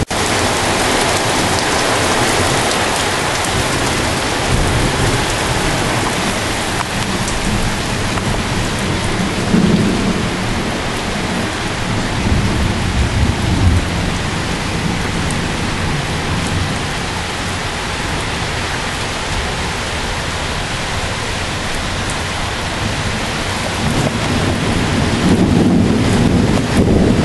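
Steady heavy rain hissing, with low rumbles of thunder swelling a few times, the strongest near the end.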